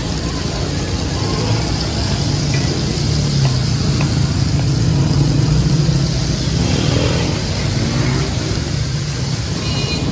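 Chicken pieces sizzling in oil and juices on a hot flat iron tawa, over a steady low rumble.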